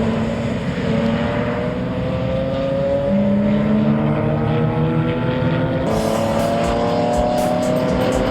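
Several BMW club race cars running at racing speed, their engine notes overlapping and slowly rising in pitch as they accelerate. From about six seconds in, irregular crackling joins the engine sound.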